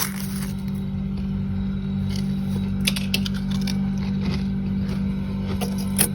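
A steady low hum, with scattered light scrapes and ticks of freezer frost being scraped.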